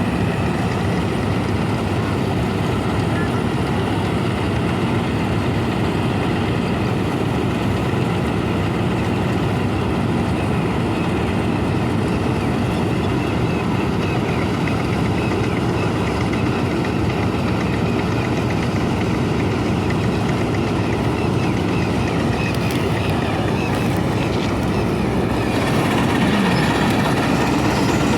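Heavy diesel farm machinery running steadily at harvest work, a continuous mechanical drone that grows a little louder near the end.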